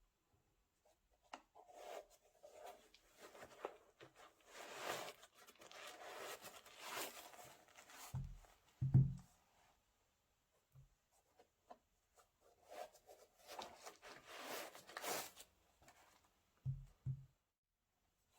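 Paper packaging rustling and crinkling as it is handled, in two long stretches, with a few soft low thumps in between and near the end.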